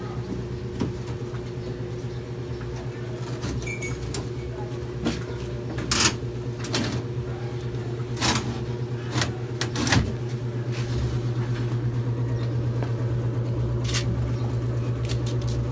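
Wooden hatcher trays with wire-mesh floors being pulled and handled in a homemade wooden incubator cabinet. There are scattered knocks and clatters of wood over a steady low hum.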